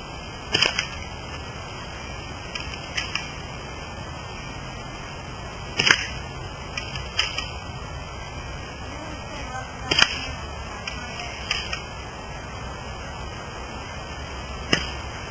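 UTG L96 spring-powered bolt-action airsoft sniper rifle fired four times, one sharp shot about every four to five seconds, with lighter clicks between the shots.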